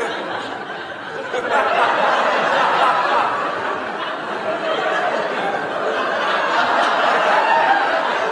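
Studio audience laughing, the laughter growing louder about a second and a half in.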